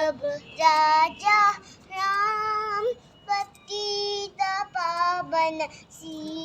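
A young child singing a short tune in high, held notes, broken into short phrases with brief pauses.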